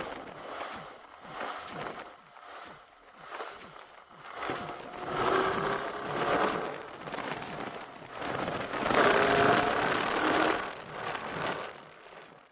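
Wind buffeting hard on an action camera's microphone at riding speed, with motorcycle engines running underneath. The engine note grows louder twice, around the middle and again about two-thirds through.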